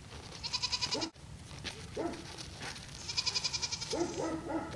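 Goats bleating several times, in short calls that bend in pitch, with a bunch of calls near the end. Twice a rapid, high chattering trill sounds over them, louder than the bleats.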